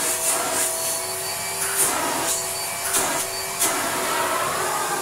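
Hitachi CV50-D upright vacuum cleaner running on carpet with a steady motor hum, smooth and quiet. A few brief hissy surges come and go in the first few seconds.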